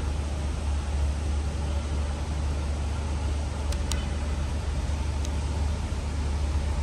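Steady city road-traffic noise: a constant low rumble under a broad hiss of passing cars.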